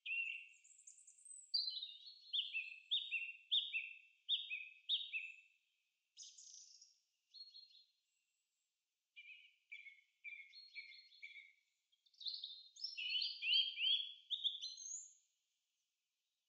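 A songbird singing: phrases of quick, high, falling notes repeated several times, with short pauses between the phrases.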